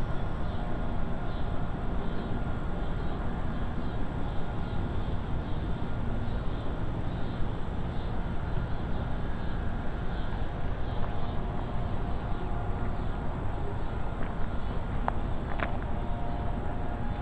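Wind buffeting the microphone in a steady low rumble that flickers in loudness, with two short high chirps about fifteen seconds in.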